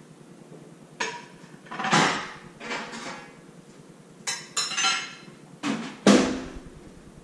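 Kitchenware being handled at a counter: a string of about seven clattering knocks and clinks of hard objects set down and moved, several with a short ring.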